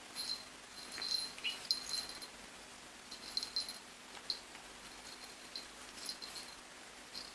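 Two puppies wrestling, their collar tags jingling in short, irregular bursts as they tussle, over a quiet background.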